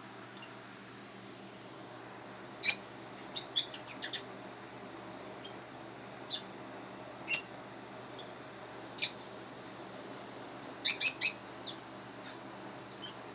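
Short, high bird chirps, some single and some in quick runs of three or four, over a low steady hum.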